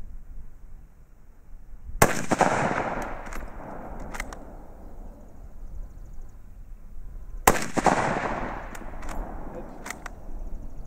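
Mauser K98k bolt-action rifle (7.92×57mm Mauser) fired twice, about five and a half seconds apart, each loud shot echoing off the range. After each shot come a few short clicks as the bolt is worked to chamber the next round.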